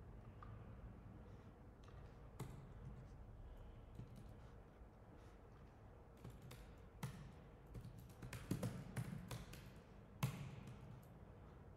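Faint computer keyboard keystrokes and clicks: a few scattered taps, then a quick run of typing about eight seconds in, ending with one sharper keystroke about ten seconds in.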